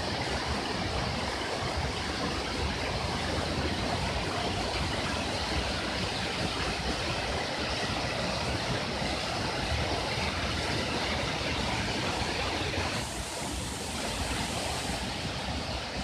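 Waterfall pouring over rock into a plunge pool: a steady, even rush of falling and splashing water.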